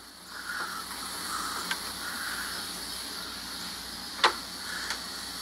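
Steady outdoor background hiss with soft swells, broken by one sharp click about four seconds in.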